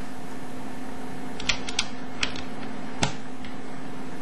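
A few small, sharp clicks and taps as parts of a shotgun and its clip-on shell catcher are handled: the rear mounting base and the cocking handle being fitted to the bolt. They are heard over a steady background hum.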